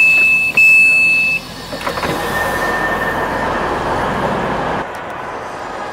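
Train door warning beeping in long, high, even beeps with short breaks, stopping about a second and a half in as the doors open. Then a steady rush of train and station noise with a faint high whine, dropping quieter near the end.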